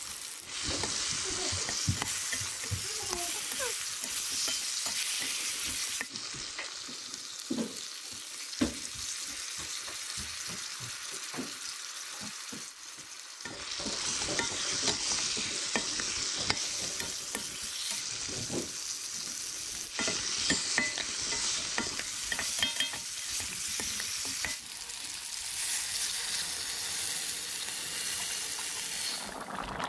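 Fish pieces and potatoes frying in spiced oil in a steel kadai, sizzling, while a spatula stirs them with many short scrapes and knocks against the pan. Near the end, water is poured into the pan.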